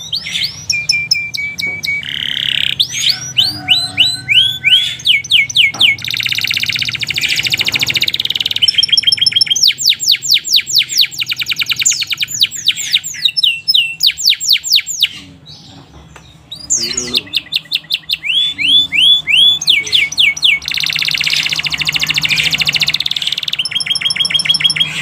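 Domestic canary singing a long continuous song of fast repeated trills and rolling phrases with buzzy stretches, with a short break about two-thirds of the way through.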